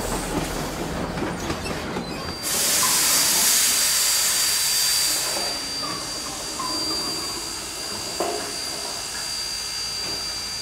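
Rio Grande Southern No. 20, a narrow-gauge steam locomotive, rolling along the track with a rhythmic clatter. About two seconds in, a loud hiss of steam starts suddenly and eases off after a few seconds.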